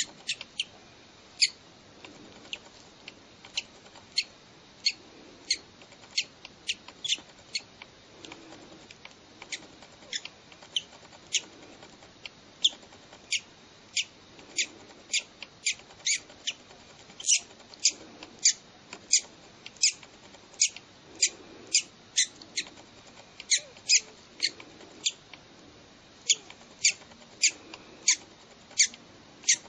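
Newly hatched bird chick cheeping: a run of short, high-pitched peeps, about two a second, with a few brief pauses.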